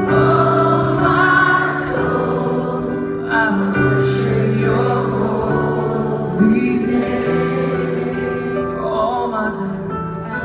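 Live worship band with acoustic guitars, keyboard and drums playing a slow song, with many voices singing along, heard from the seats of an arena.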